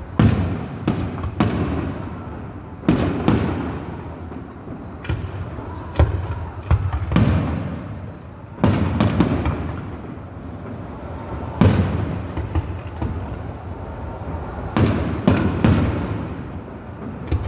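Aerial fireworks shells bursting in an irregular string, some in quick clusters, each a sharp bang with a rumble that trails off after it.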